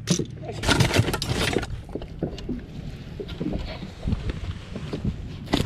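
Clattering knocks and rustling of someone moving about and handling gear on the deck of a fishing boat, busiest in the first second and a half, with a sharp knock near the end, over a steady low wind rumble on the microphone.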